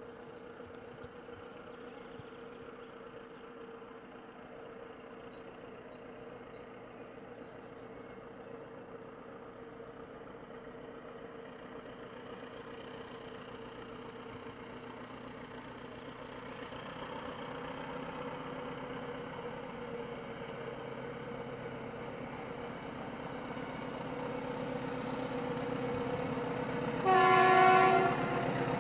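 SM42 diesel-electric shunting locomotive approaching under load with a train of loaded hopper wagons, its diesel engine drone growing steadily louder. Near the end it gives one horn blast about a second long, the loudest sound.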